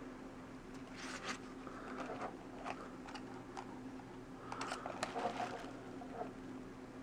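Light clicks and rustles of a laptop keyboard being handled and laid against another, loudest in a cluster about two-thirds of the way through, over a faint steady hum.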